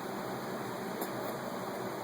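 Steady, even background hiss like a running fan, with no snore rising or falling in it, and a faint tick about halfway through.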